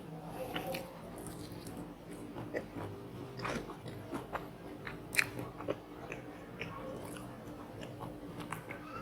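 A person chewing and biting food close to the microphone, with crisp crunching clicks throughout, the sharpest about five seconds in.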